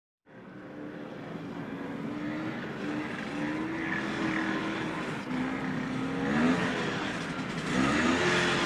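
Off-road ATV engine running and getting steadily louder, with the revs climbing sharply twice near the end.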